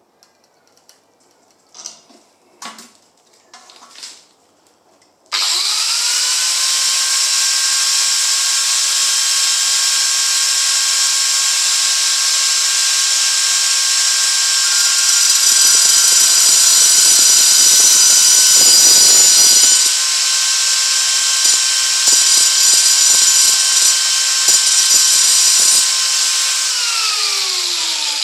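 A few light knocks as a bolt is set in a small metal vice, then a high-speed electric cutting tool switches on with a steady high whine and hiss, gets louder and rougher as it bites into the steel bolt, and winds down with a falling pitch near the end after it is switched off.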